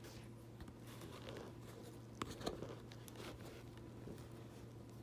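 Faint small clicks and rustles of hands handling the thread and bobbin at a sewing machine, with a couple of small knocks a little after two seconds in, over a steady low hum.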